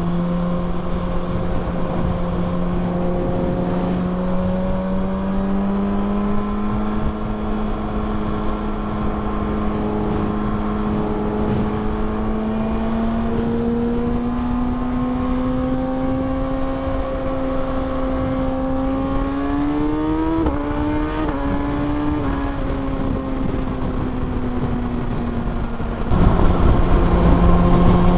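2020 Kawasaki Ninja ZX6R inline-four engine under way. Its pitch creeps up slowly, then rises quickly in a few steps about twenty seconds in, as in upshifts under hard acceleration, and eases back down. Near the end a louder rush of wind noise suddenly joins it.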